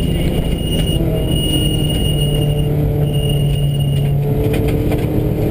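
Subaru rally car's flat-four engine running hard, heard from inside the cabin, with loud road noise from the tyres on a dirt and gravel road. The engine note is steady and steps down a little about two seconds in.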